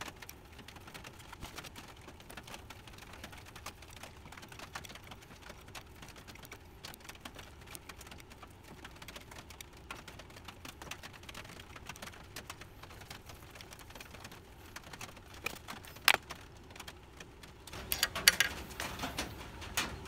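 8-32 hand tap cutting threads in a small metal bar held in a vise: faint, irregular clicks and ticks as the tap is turned and backed off to clear the chips. A sharp click about sixteen seconds in and a flurry of louder clicks and knocks near the end.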